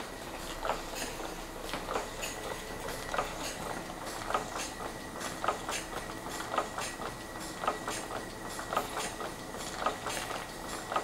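Model sternwheeler steam engine running slowly on steam: a regular beat of short sharp strokes, a strong one about once a second with lighter ones between, over a faint steady high whine.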